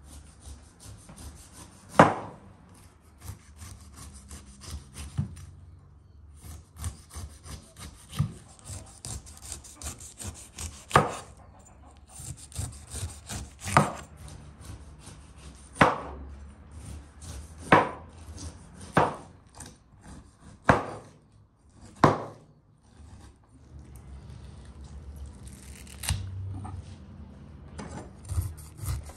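A large kitchen knife slicing the rind off a whole pineapple: the blade rasps and saws through the tough skin, with a sharp knock each time it comes down on the wooden cutting board, about every one to two seconds.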